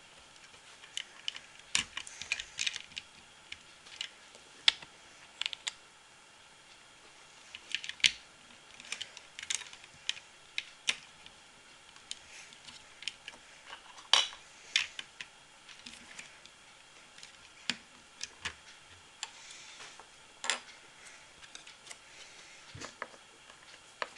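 Irregular sharp clicks and taps of small hard objects, coming singly or in short clusters with pauses between, over a quiet steady background.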